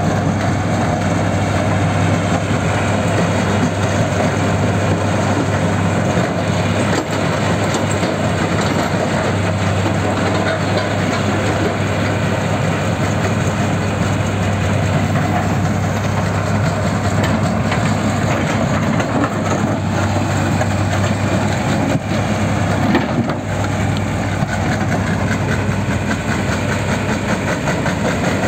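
Terex Finlay mobile crusher working concrete rubble, fed by a Caterpillar 330C excavator: a steady diesel drone under continuous grinding and clatter of broken concrete. One louder knock comes about three-quarters of the way through.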